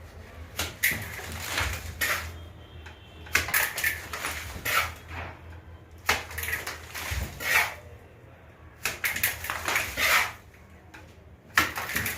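Hand tools working wet mortar on a ceiling repair: a dozen or more short, irregular scraping and scooping strokes, like a trowel on a mortar pan.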